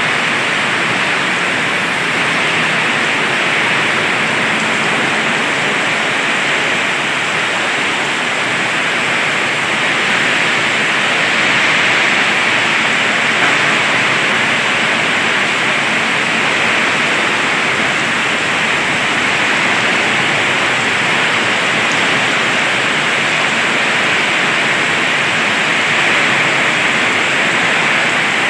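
Heavy tropical downpour during a storm: rain falling steadily as a loud, even hiss with no let-up.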